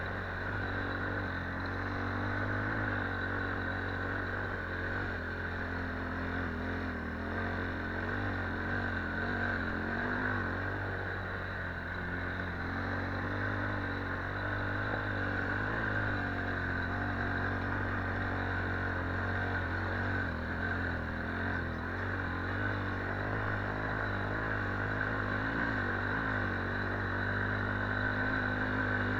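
Quad bike (ATV) engine running steadily while being ridden, its pitch wavering slightly up and down with the throttle.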